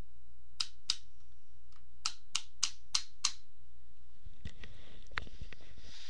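Sharp little clicks, first two, then a run of five at about three a second, followed by rustling and a few light knocks: a small screwdriver working at a screw in the plastic casing of a toy saber, and the toy being handled.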